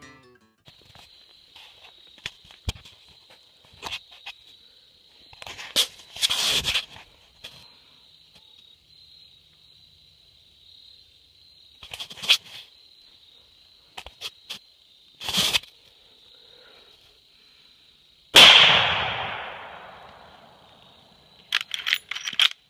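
A single shot from a lever-action .30-30 rifle about two-thirds of the way in: a sudden loud crack that echoes away over about two seconds. Scattered rustles and knocks of handling come before it, and near the end a quick run of metallic clicks as the lever action is worked.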